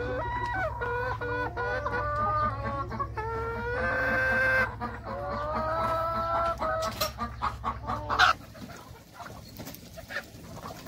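A flock of desi (gavran) chickens clucking and calling, many drawn-out calls overlapping, over a steady low hum. About eight seconds in the calling and the hum stop abruptly, leaving quieter scattered sounds.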